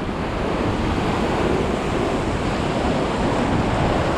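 Sea surf washing against a rocky shore, with wind buffeting the microphone: a steady rushing noise.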